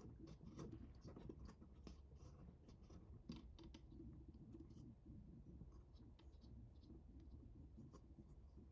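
Near silence with faint, scattered clicks and scratches, several a second.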